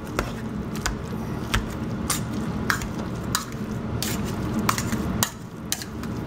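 Wire potato masher mashing boiled potatoes with evaporated milk and butter in a stainless steel pot: a soft squishing with a sharp metal clink of the masher against the pot about every half second or so.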